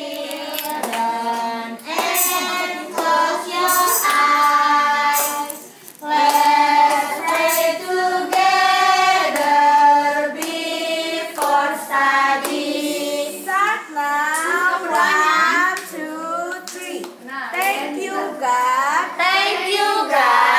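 Young kindergarten children and their teachers singing a morning prayer together in unison, with hand claps. Long held notes give way to quicker, bouncier sung phrases about two-thirds of the way through.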